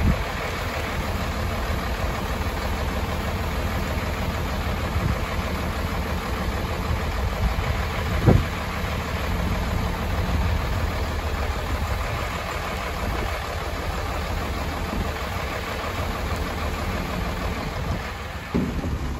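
Scania 93M's six-cylinder diesel engine idling steadily while it drives the rollback bed's hydraulics, with a single sharp clunk about eight seconds in and another near the end as the bed shifts.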